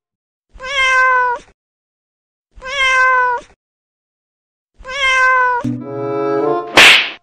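A cat's meow, the same falling call repeated three times about two seconds apart, each about a second long. Near the end music starts, with a loud swishing hit shortly before the end.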